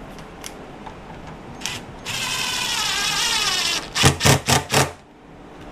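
Ridgid cordless driver driving a screw to fasten a sway bar bracket down to a wooden bench. It runs for nearly two seconds with its motor pitch steadily falling as the load builds, then gives four short loud bursts as the screw is snugged down.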